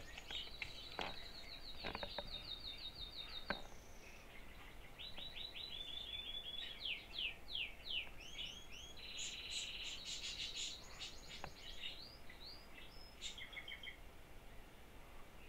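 Songbirds singing faintly: a rapid, even trill for the first few seconds, then a run of quick sweeping notes and trills. A few light clicks and knocks sound in the first four seconds.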